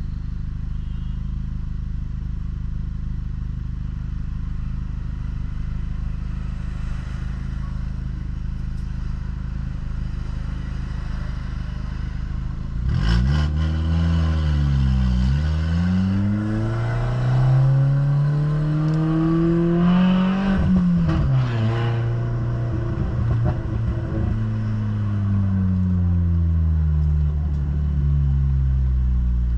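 Ford New Fiesta's engine and exhaust, fitted with an aftermarket diffuser ahead of the mufflers, running steadily at first. About halfway through it revs up, drops back briefly, then climbs again through a long pull before the pitch falls away, the exhaust rumbling under acceleration.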